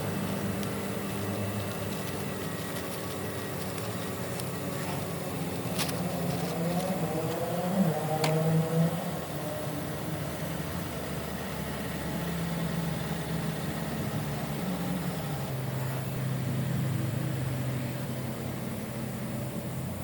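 A motor vehicle engine running steadily, with its pitch briefly rising and falling near the middle and a couple of sharp clicks.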